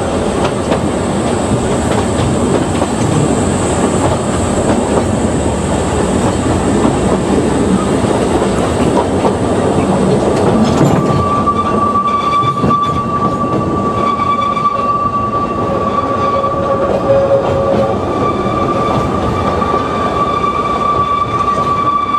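Ōigawa Railway Ikawa Line train running along the track with a steady rumble and clatter. About halfway through, a steady high squeal sets in and holds, like wheels squealing through a curve.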